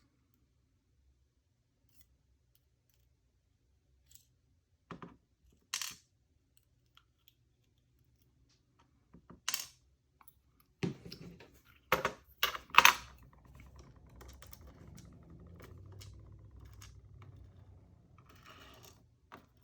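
Small metal parts of a disassembled lock cylinder being handled, giving a handful of scattered clicks and clacks. The loudest come in a quick cluster about 11 to 13 seconds in, followed by a faint low rubbing of handling.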